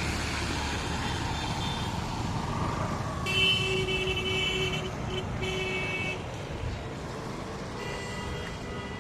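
Road traffic rumble with a vehicle horn honking in long, held blasts: one of about three seconds with a short break, and another near the end.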